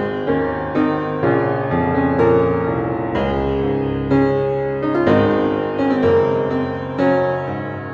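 Background music led by piano, with notes and chords struck at an even pace.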